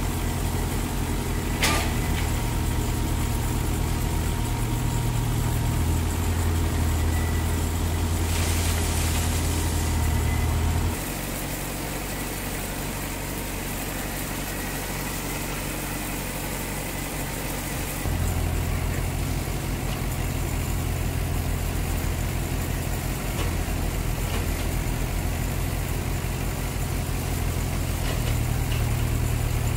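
Diesel engines of construction machinery, a tractor at a concrete pan mixer and a tracked excavator, running steadily with a deep hum. The low rumble drops for several seconds midway, then comes back.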